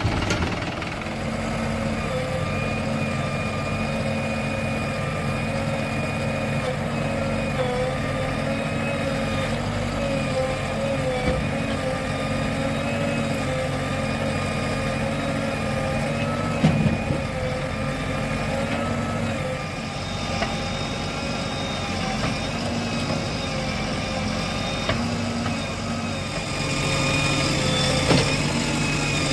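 JCB 3DX backhoe loader's diesel engine running steadily while working, with a couple of short knocks. It gets a little louder near the end.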